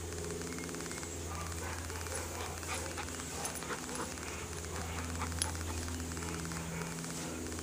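A dog gives a few short, sharp sounds about halfway through, over a steady low hum.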